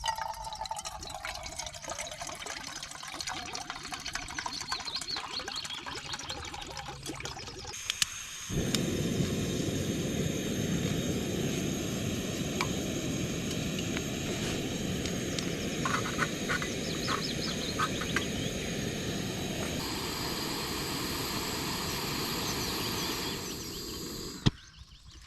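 Outdoor riverside ambience of flowing water with birds calling, in separate takes that change abruptly about eight seconds in and again near the end.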